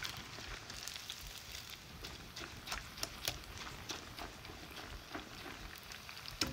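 Cold cooked rice deep-frying in hot oil in a cast-iron pot: a fairly quiet, steady sizzle with many scattered crackling pops.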